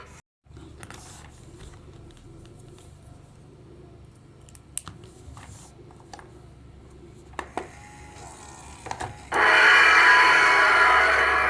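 Electric gong alarm clock ringing in a loud, continuous metallic rattle that cuts off suddenly. A faint hum and a few light clicks follow, and the ringing starts again abruptly about nine seconds in.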